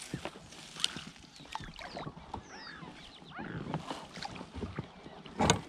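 Small fishing boat on the water as the angler moves about in it: scattered knocks and clicks with a stretch of rustling, and one louder knock near the end.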